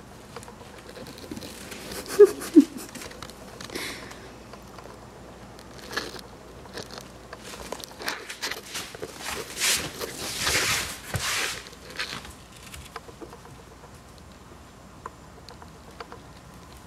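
Cavalier King Charles Spaniel puppy's paws and claws pattering on a hardwood floor, with two short squeaks about two seconds in and a stretch of rustling around the middle.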